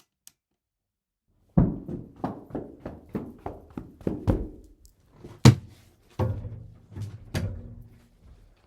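A run of quick dull thuds, about three a second, then four heavier hits with a short low ringing after each, the loudest a little past halfway.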